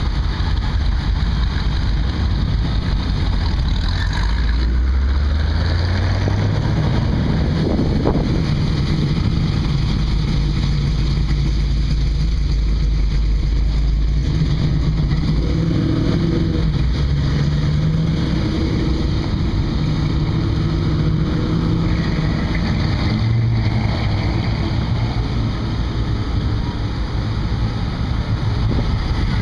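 Classic American cars' engines running as they pull out of a lot one after another, first a C3 Corvette's V8, then a first-generation Camaro, then a mid-1960s Pontiac. One engine revs up in a rising tone about four to six seconds in, and a steady low rumble follows.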